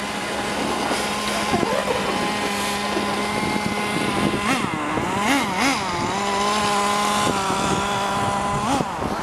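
Radio-controlled car motors running with a steady whine that swoops up and down in pitch several times around the middle as the throttle is worked.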